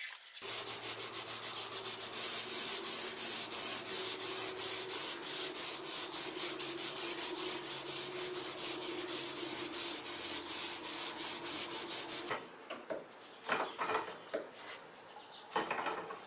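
Hand-sanding a wooden sword part with sandpaper: quick, even back-and-forth rubbing strokes, about four a second, stopping about three-quarters of the way through, followed by a few light knocks as the wood is handled.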